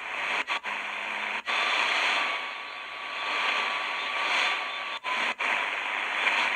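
Shortwave hiss and static from a Tecsun PL-310ET DSP receiver's speaker while it is tuned across the 40 m ham band. The noise cuts out briefly a handful of times as the tuning steps, and a faint steady whistle sits under it for a few seconds mid-way.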